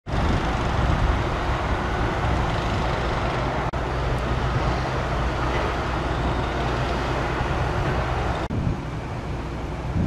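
Diesel-powered train passing, with a steady low engine drone under heavy rumbling noise; the sound breaks off abruptly twice, a little over a third of the way in and again near the end, where the footage cuts.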